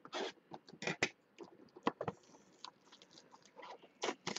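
Clear plastic wrap crinkling and cardboard trading-card boxes being handled: a run of irregular rustles and clicks, loudest near the start and again near the end.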